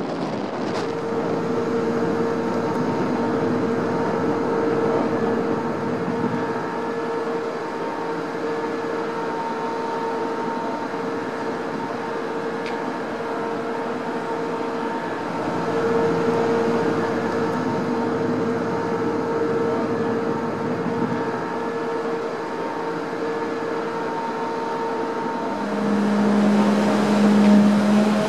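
A car ferry's engines and machinery humming steadily on deck, several steady tones over a low rumble and wind noise. Near the end a deeper, louder tone comes in, with higher tones rising above it as the machinery speeds up.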